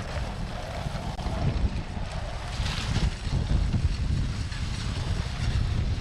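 Wind buffeting the camera microphone while riding a bicycle at speed: a steady, uneven low rumble.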